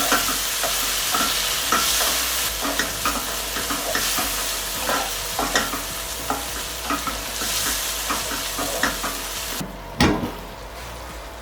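Shrimp with garlic and chilli sizzling in hot oil as they are stir-fried, with a spatula scraping and clacking against the pan many times. Near the end the sizzle drops off, and a single loud knock follows.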